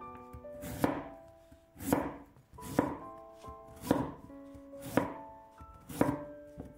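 Chinese cleaver slicing a peeled raw sweet potato into thin rounds on a wooden cutting board: a crisp knock of the blade on the board about once a second.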